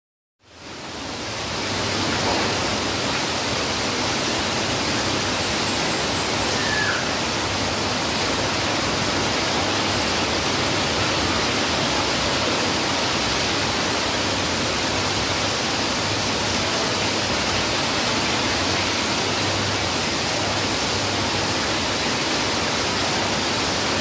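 Heavy rain falling steadily, a dense, even hiss that fades in over the first couple of seconds.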